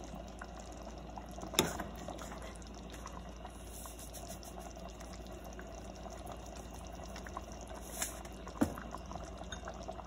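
Chicken stew in thin coconut milk boiling in a stainless steel pot, a steady bubbling. There are a few sharp clinks of a metal spoon against the pot, about a second and a half in and twice near the end.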